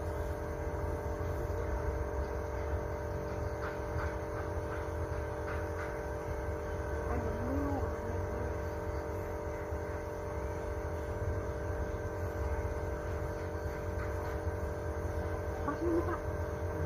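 Steady motor hum with a low rumble underneath, holding one even pitch throughout.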